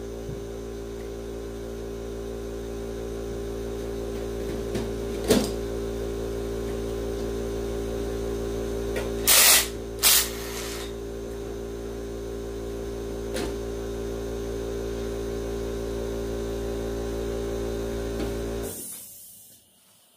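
A machine motor runs with a steady multi-pitched hum and stops abruptly near the end. Two short, loud hissing bursts come about nine and ten seconds in, with a sharp click before them.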